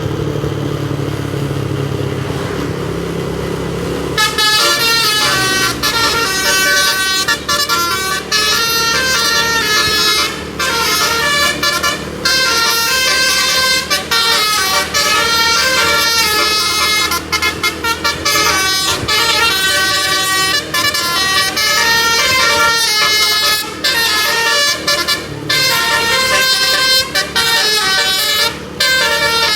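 A vehicle engine runs, then about four seconds in a tour bus's telolet basuri musical air horn starts playing a rapid melody of several tones that step up and down, with brief breaks between phrases.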